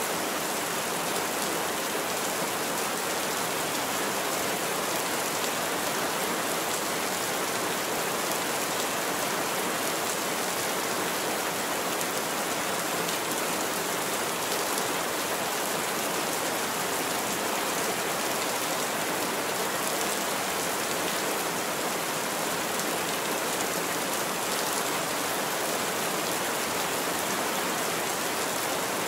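Heavy rain falling steadily on a roof, a dense, even hiss that does not change.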